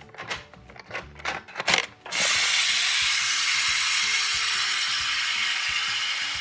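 Plastic clicks and knocks as a toy waffle is pushed down into a Hello Kitty toy toaster. About two seconds in, the toy toaster's electronic toasting sound starts suddenly: a steady, loud hiss that runs on for about four seconds.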